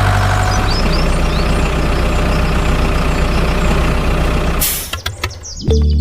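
A heavy vehicle engine, like a truck, running steadily with a strong low hum. About three-quarters of the way in a short hiss is heard, like an air brake, and then music begins near the end.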